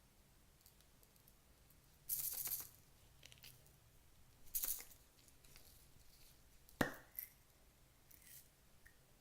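A few short, crisp rattling bursts and a sharp click from small makeup pieces and containers being handled for mixing into slime.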